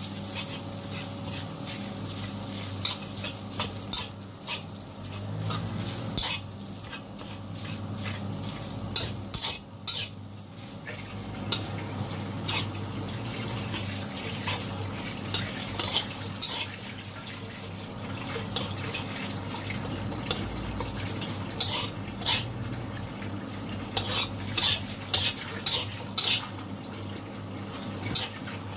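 Metal spatula scraping and clacking against a wok while fried rice is stir-fried, over a steady frying sizzle. The spatula strikes come in irregular clusters, thickest in the second half.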